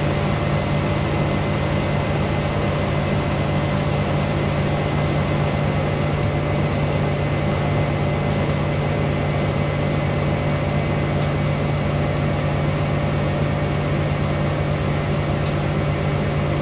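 Hoover Performa washing machine spinning at a steady speed during the spin after a wash cycle: an even low hum with thin steady tones above it.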